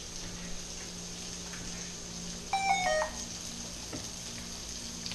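Diced ham frying steadily in a wok. About two and a half seconds in, a smartphone gives a quick run of electronic beep tones lasting about half a second.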